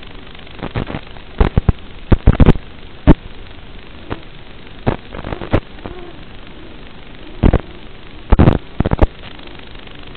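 Steady static hiss from an analog FPV video receiver's audio channel, broken by irregular loud crackles and pops in clusters, the loudest about two seconds in and in the last couple of seconds: interference on a weakening radio video link.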